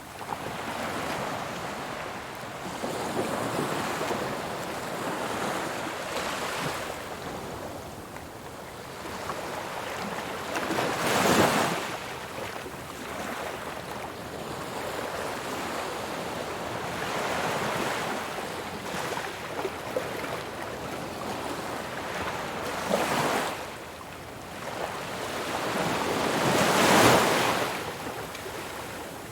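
Ocean waves breaking on a shore, a steady wash of surf that swells and fades, with two louder breakers at about 11 and 27 seconds in.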